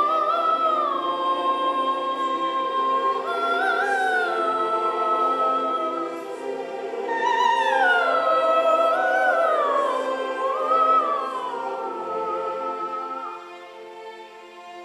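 Solo soprano singing an opera aria with wide vibrato on long held notes, sliding between pitches, over piano accompaniment. Her voice stops shortly before the end while the piano plays on more softly.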